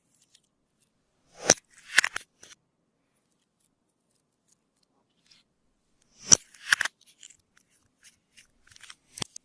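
Slime being pressed and worked by hand, giving sharp pops and crackles: a cluster about a second and a half in, another past six seconds, and a few smaller pops near the end.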